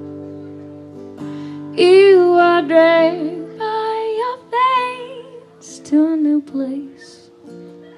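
A woman singing a slow, drawn-out phrase with vibrato over guitar accompaniment. It begins about two seconds in, after a held chord.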